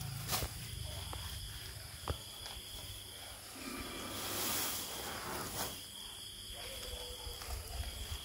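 Crickets trilling steadily at night, a thin high-pitched tone that drops out now and then. A soft whooshing swell about four seconds in and a few faint clicks sit over it.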